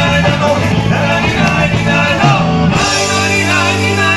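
Live band playing rock-style music on electric guitars and drums, with a singing voice over it, amplified through stage loudspeakers.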